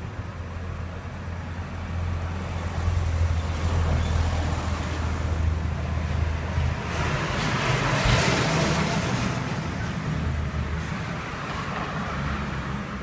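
Street traffic: a steady low engine hum, then a vehicle passing by, its noise swelling and fading about eight seconds in.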